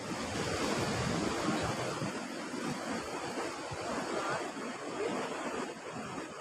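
Sea surf washing against a rocky shore, with wind blowing on the microphone.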